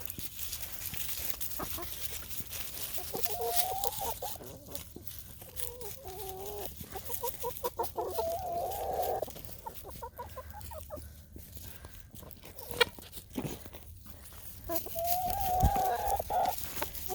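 Backyard hens clucking as they follow close underfoot, with a few drawn-out calls of about a second each among the shorter clucks.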